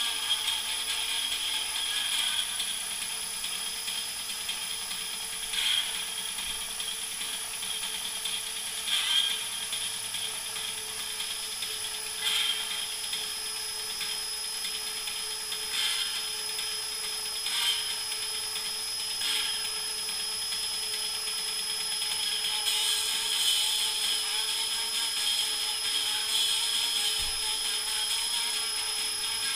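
Cordless drill motor running steadily with a constant whine as it spins a 7-inch vinyl record, while a sewing needle in a rolled paper cone rides the grooves and gives a thin, scratchy playback. The scratchiness swells in short bursts every few seconds.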